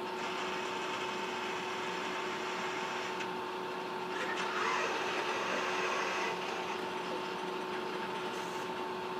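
Baxter robot's arm joint motors whirring as the arm moves, over a steady faint hum. The whir shifts several times as the arm starts, stops and changes direction, and is a little louder for a couple of seconds in the middle.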